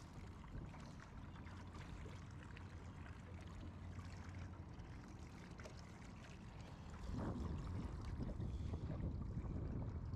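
Water sloshing and splashing around a small boat, with a hooked fish breaking the surface and a low steady rumble underneath. It gets louder from about seven seconds in.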